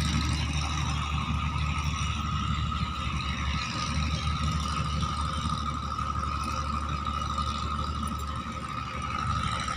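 An engine running steadily: a low rumble with a steady high whine above it.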